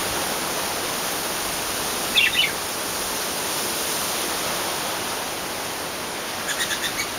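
Steady, even hiss of outdoor noise, with a short burst of bird chirps about two seconds in and a run of light, quick high ticks near the end.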